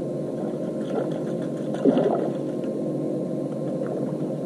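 Electric trolling motor on a bass boat running with a steady hum.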